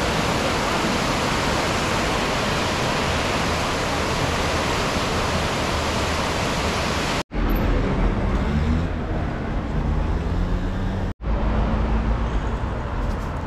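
Mur river rushing over white-water rapids: a steady, even rush of water. About seven seconds in the sound cuts abruptly to low street traffic, with a car passing.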